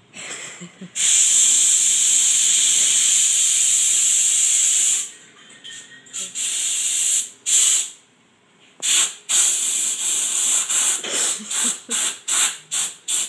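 Compressed air hissing from an air compressor's hose, let out in bursts: a long blast of about four seconds, then shorter blasts with pauses between, and a quick run of short puffs near the end.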